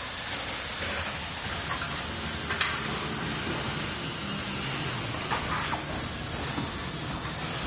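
Factory manufacturing ambience: a dense, steady machinery noise with a low hum under it and a few short hisses.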